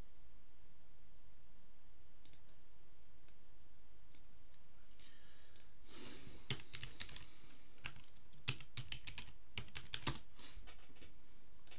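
Typing on a computer keyboard: a few scattered clicks at first, then a quick run of keystrokes in the last few seconds.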